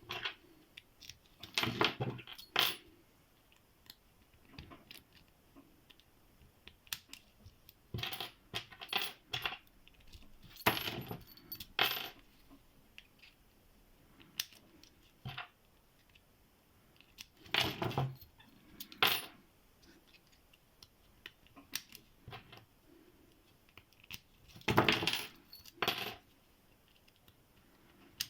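Small metal padlocks clicking and clinking as they are handled and bypassed one after another: clusters of sharp metallic clicks and clatter every several seconds, with quiet in between.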